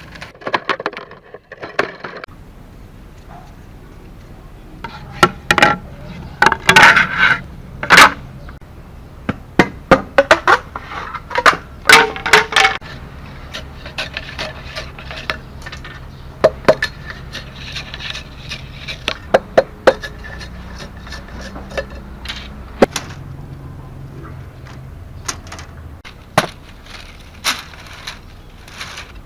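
Bamboo being split and worked with a heavy knife blade: irregular sharp knocks and cracks of blade on bamboo, coming thick and loud in the first half, then scattered clicks and taps.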